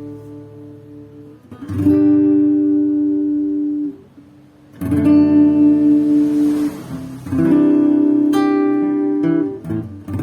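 Acoustic guitar playing chords: four strummed chords, each left to ring for a couple of seconds before the next.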